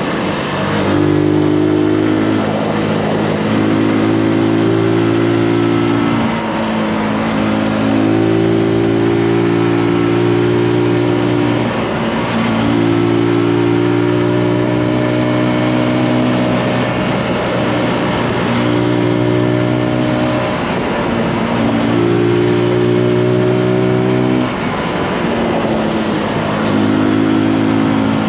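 Zontes G155 motorcycle's single-cylinder four-stroke engine running under load at fairly steady revs, with the throttle easing off briefly every few seconds.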